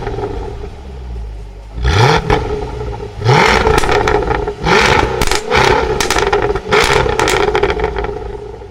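Jaguar F-Type R's supercharged 5.0 V8 revving in three short, quick rises, with exhaust crackles and pops between them and a rapid string of pops afterwards, fading near the end.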